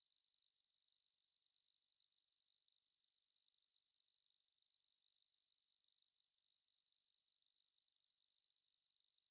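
Steady electronic sine tone, high-pitched and unwavering, imitating the ringing of tinnitus.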